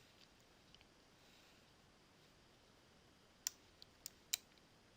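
Near silence with a few light computer mouse clicks, about four in quick succession near the end.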